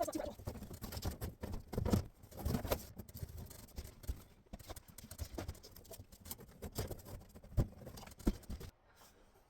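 Scattered knocks, taps and scrapes as a thin plywood board is worked into place by hand, with a few sharper knocks.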